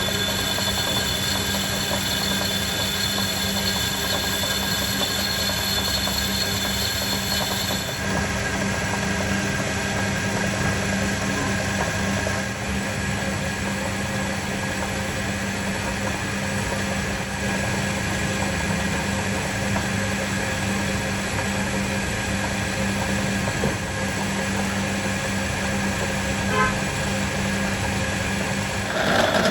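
Workshop machine running steadily with a low hum, with a thin high whine over it that stops about eight seconds in.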